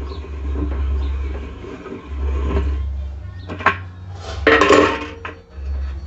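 Metal clinking and scraping as the washer's tub nut is spun off the transmission shaft by hand and the steel spanner wrench is handled, with a sharp click about three and a half seconds in and a louder clatter just before five seconds. A low rumble runs underneath.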